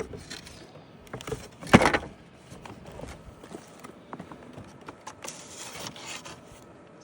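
Handling noise from a loose cedar roof shake being lifted and slid up over the underlayment: light scraping and clicking, with one sharp knock a little under two seconds in.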